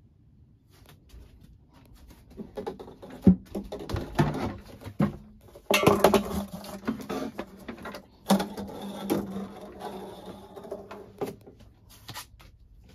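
Repeated knocks, clicks and clatter of a plastic portable camping sink being handled and fitted together, with a few sharp louder knocks, over a low steady hum.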